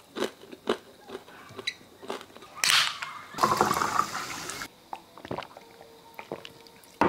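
Crunchy bites and chewing of fried skewers as short scattered clicks, then a short hiss, then sparkling water poured into a glass for about a second.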